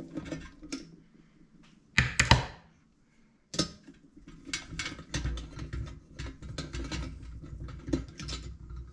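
Small metal clicks, taps and rattles of a hand driver working the nuts off a bathroom exhaust fan's motor mount, with a sharp knock about two seconds in and another about a second and a half later. Quick clicking and rattling builds up over the last few seconds.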